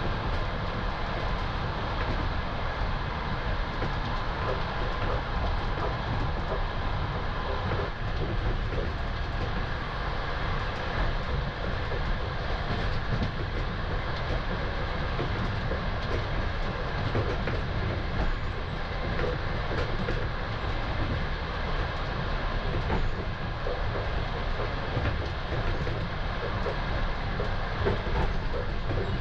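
Steady rumble of a Russian passenger train running on the track, heard from inside a compartment sleeping car, with faint knocks of the wheels.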